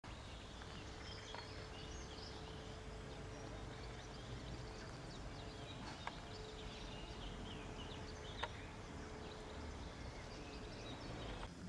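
Outdoor ambience: small birds chirping and singing over a low steady rumble and a faint hum, with two sharp clicks about six and eight and a half seconds in.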